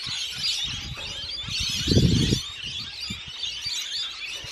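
A flock of parrots chattering with many overlapping high-pitched chirps, with a short low thud about two seconds in.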